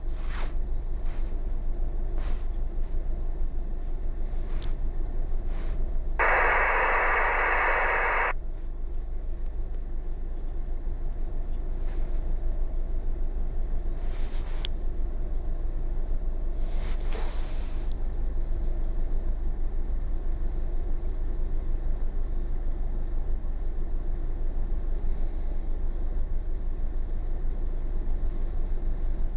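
Steady low rumble, with a two-second burst of hiss from an air-band radio scanner about six seconds in, and a few faint clicks.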